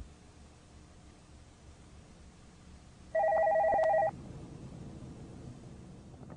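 A telephone rings once, about three seconds in: a single ring lasting about a second, over faint background.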